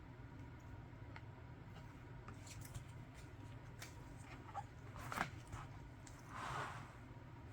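Faint handling of a children's board book: a few small clicks and taps, then a brief papery swish about six and a half seconds in as a page is turned.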